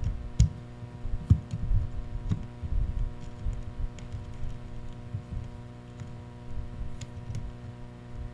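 Scattered small clicks and taps from handling wires and amplifier terminals as a speaker cable is fitted, over a steady electrical hum.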